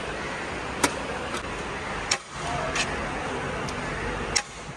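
Steady background noise of a busy railway station platform, broken by a few sharp clicks and knocks.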